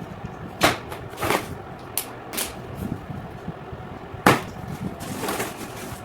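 Cardboard shipping carton being handled and opened: several sharp knocks and scrapes, the loudest about four seconds in.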